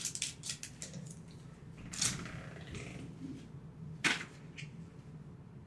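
Board game components and packaging being handled: soft rustles, a brief crinkle about two seconds in and a sharp click about four seconds in.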